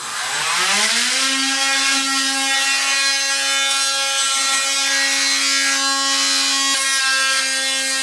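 An electric power tool's motor spins up over the first second to a steady, even whine and then runs at constant speed without a load change.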